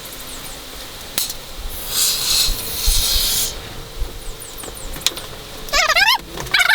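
Aerosol spray paint can hissing in one burst of about two seconds, with a few sharp clicks around it. Near the end comes a quick run of rising, squeaky chirps.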